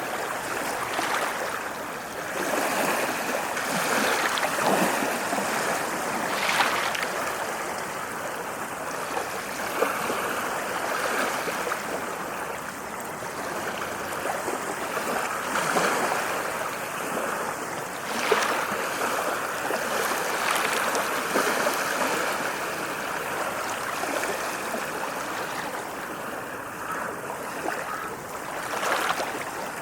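Ocean waves washing onto a shore: a continuous wash of water that swells and eases in slow, irregular surges.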